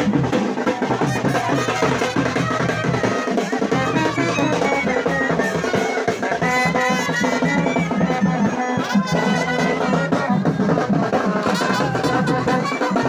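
Band music with brass horns playing a tune over a steady drum beat.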